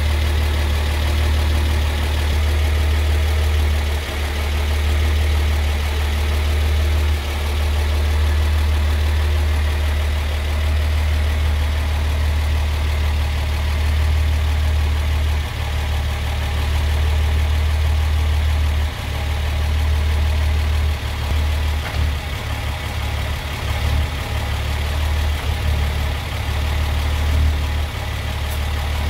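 1937 Hudson Terraplane pickup engine idling steadily, with a few brief dips in level and a less even run in the last several seconds.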